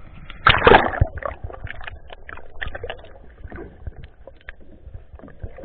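Muffled underwater sound with water sloshing and scattered crackling clicks, and a louder splash about half a second in.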